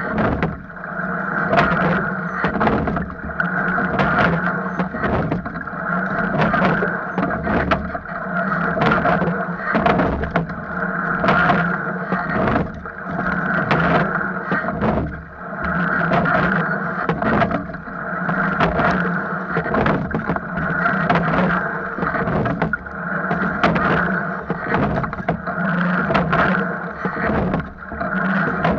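Sweep-oar rowing shell under way at a steady stroke: a stroke cycle about every two seconds, the hull's water noise swelling with each drive, and sharp clunks of the oars turning in their oarlocks at the catch and finish.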